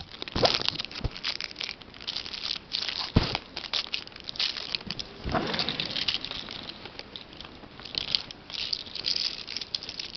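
Rustling and crinkling from close handling right by the microphone, with a few sharp knocks along the way.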